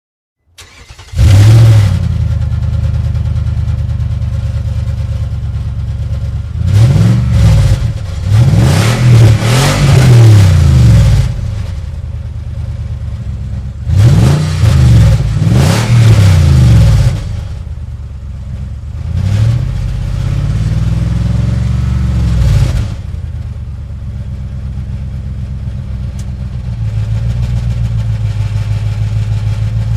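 Sports car engine starting about a second in and settling to an idle, then revved hard in repeated quick blips, rising and falling in pitch, in three groups with idle between. The last group is a slower rev, and it ends on a steady idle.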